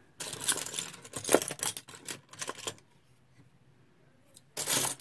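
Hard seashells and sand dollars clinking and clattering against each other as they are handled in a box: a run of light clicks over the first three seconds or so, then a short rustle near the end.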